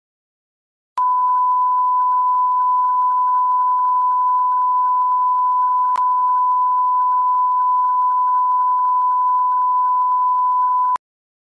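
Steady single-pitch test tone of a digital TV test broadcast, the line-up tone that accompanies colour bars. It starts abruptly about a second in and cuts off abruptly near the end, with one brief click midway.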